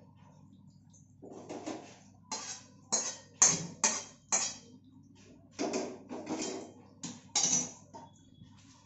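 Stainless steel kadhai, held in tongs, knocked and scraped against a steel strainer as boiled chana dal is tipped out to drain: a series of sharp metal clanks and scrapes starting about a second in, loudest in the middle, followed by a few more.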